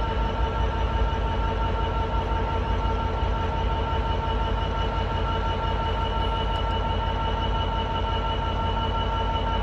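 Class 66 diesel locomotive's two-stroke EMD V12 engine idling: a steady low rumble with a constant high whine over it, holding at one idle stage.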